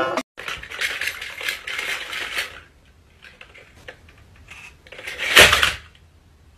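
Hard plastic rattling and clicking for about two seconds, then a single louder clatter about five seconds in as a plastic toy dinosaur carrying a tray of wafers topples over onto the wooden floor.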